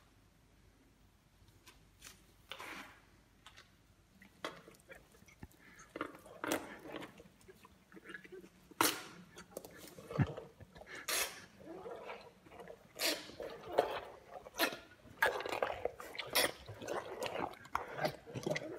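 An Asian elephant crushing and chewing a whole watermelon: irregular crunches of the rind and wet squelches of juice. They come sparsely at first and grow thicker and louder through the second half.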